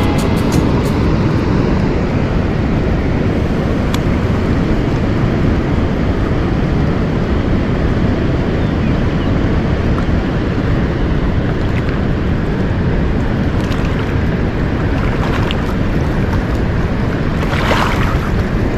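Steady rushing of fast river water mixed with wind on the microphone, with a few faint clicks and a short louder rush near the end.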